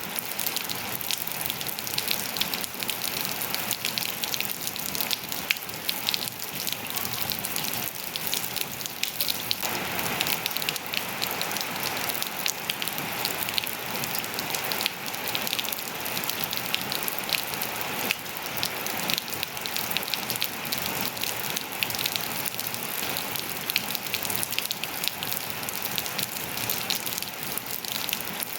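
Steady rain falling on surfaces: an even hiss with dense, crisp drop patters. It grows a little fuller about ten seconds in.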